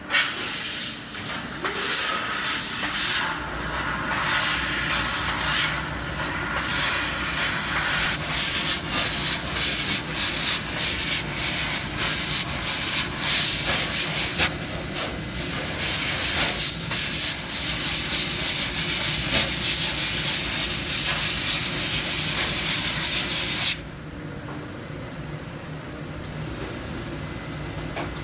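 LVD Strippit Lynx FL3015 fiber laser cutting a steel plate: a loud, rough, uneven hiss with many short crackles from the cutting head. Near the end the hiss cuts off suddenly, leaving a quieter steady machine hum.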